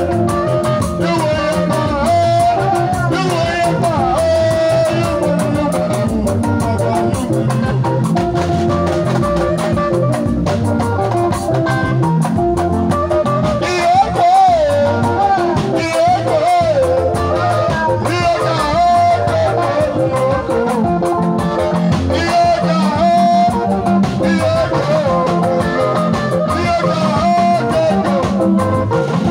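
Live band music led by electric guitar, played loud through PA loudspeakers, with a man singing over it into a handheld microphone.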